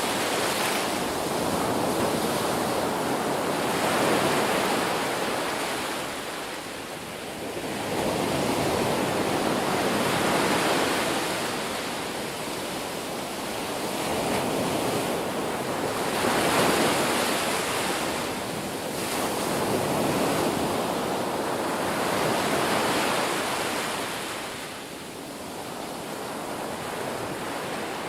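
Ocean waves breaking and washing in, a continuous rush that swells and falls back every few seconds.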